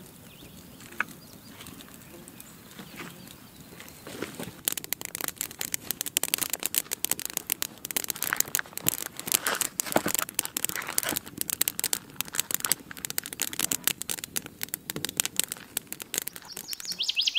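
Wood campfire crackling: faint at first, then from about four seconds in a fast, dense run of snaps and pops as the fire catches.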